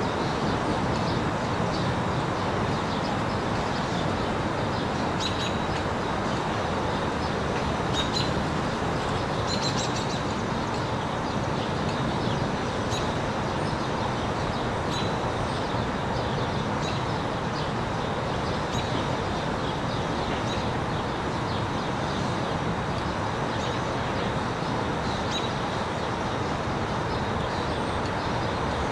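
Steady road noise from a car driving along a street, with birds chirping on and off above it.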